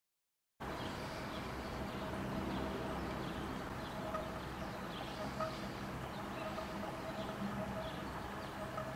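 A steady low rumble with a faint hum starts about half a second in and runs on, with faint short bird chirps heard over it.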